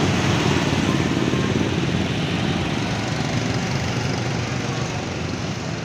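A motor vehicle engine running steadily at close range, its level easing slightly near the end.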